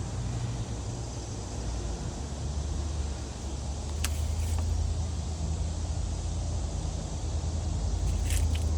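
Steady low rumble with a light hiss, swelling a little in the second half, with a couple of faint clicks.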